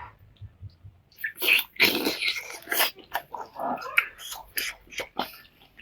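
Close-miked eating sounds: a person biting into and chewing meat with wet, irregular mouth clicks and smacks, starting about a second in.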